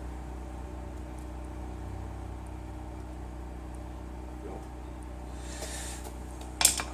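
Steady low hum throughout, with brief handling noise of a rubber cable grommet being worked onto a hood release cable and a sharp click near the end.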